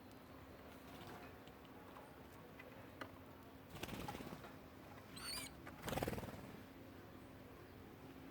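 Birds moving close by: a few light clicks and a rustle, then a short high wavering bird call about five seconds in. Right after it comes the loudest sound, a brief burst of wing flapping.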